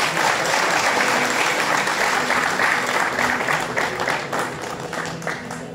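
Audience applauding, a dense clapping that starts just before and dies down toward the end.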